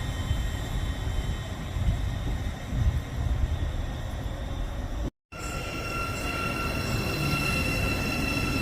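Train running past with a steady low rumble and thin, steady high-pitched whines over it. The sound drops out completely for a moment about five seconds in, and comes back with a different set of high whines.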